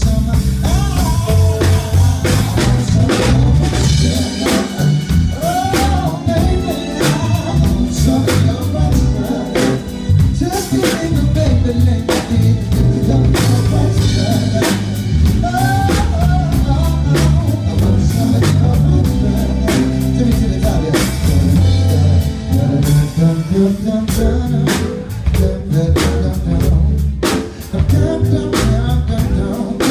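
Live band music: a singer singing into a microphone over a drum kit and a strong bass line, with drum hits keeping a steady beat.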